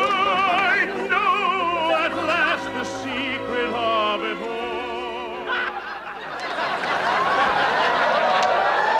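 Operatic singing with heavy, wide vibrato on long held notes, which breaks off about five or six seconds in; the murmur of a crowd of voices fills the rest.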